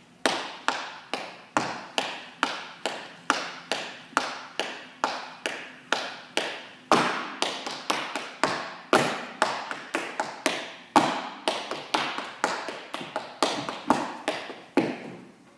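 Dance footwork: hard-soled shoes striking a studio floor in a steady slow rhythm of about two steps a second. From about halfway through, a louder stamp lands every two seconds or so, and the steps stop just before the end.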